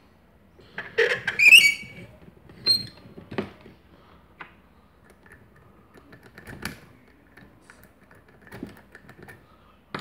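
A brass lock cylinder being handled and clamped in a small bench vise with rubber-padded jaws. A short squeaking scrape comes about a second in, then scattered light clicks and knocks.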